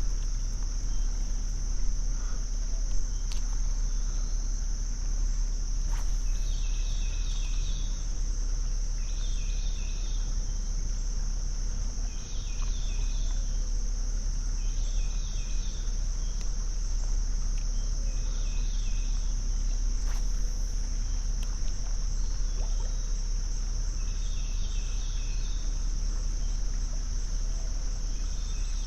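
Steady high-pitched drone of summer insects, with a short chirping call repeating every two to three seconds over a low rumble.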